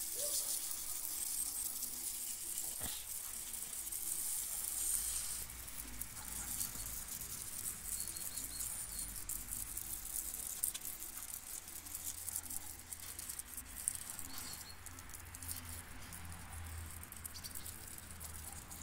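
Pressure-washer jet hissing and spattering against the oily engine block and fittings of an Ursus C-330 tractor. It is louder for the first five seconds or so, then softer.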